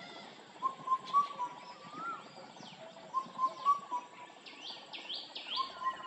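Indian cuckoo calling its four-note phrase, repeated about every two and a half seconds, with a third phrase starting near the end. Another bird gives a quick run of high, falling chirps in the middle.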